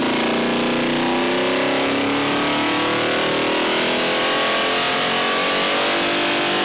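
Ford 390 FE big-block V8 on an engine dyno at wide-open throttle, making a power pull from 2,500 to 6,000 rpm. A loud, steady run whose pitch climbs evenly as the revs rise, topping out near the end.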